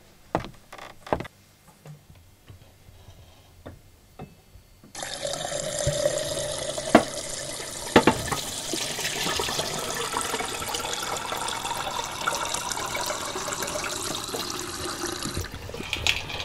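Kitchen mixer tap running into a stainless steel kettle, filling it. The water comes on abruptly about five seconds in and stops shortly before the end. A few light clicks and knocks of handling come before it, and two sharp knocks come partway through the filling.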